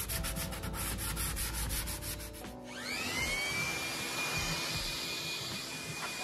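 Hand scuff-sanding of an oak cabinet: quick, rhythmic rubbing strokes of sandpaper on wood. About two and a half seconds in, a Makita electric blower starts with a rising whine and then runs steadily, blowing the sanding dust off the cabinet.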